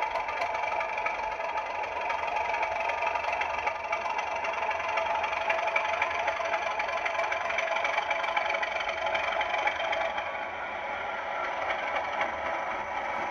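Bachmann model Class 37 diesel locomotive moving slowly along the layout track, giving a steady mechanical running sound that eases off about ten seconds in.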